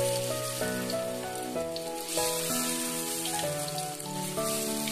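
Soft instrumental background music with held notes, over the steady hiss of batter fritters frying in hot oil in a wok.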